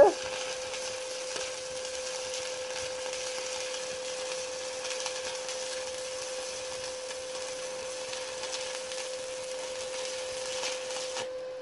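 Stick-welding arc from a Titanium Ti180 inverter welder set to 90 amps, laying a bead on a dirty, oily steel sheet: a steady crackling hiss that cuts off suddenly near the end when the arc is broken.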